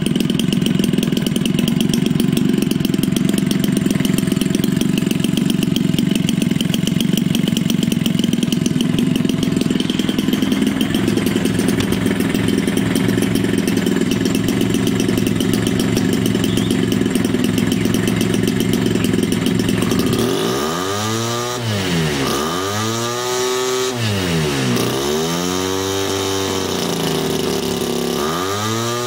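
Homelite 25cc two-stroke trimmer engine, converted to drive a propeller for an RC air boat, running at a low, chunky idle. Its pitch steps up a little about a third of the way in. In the last third it is revved up and down over and over, about every two and a half seconds.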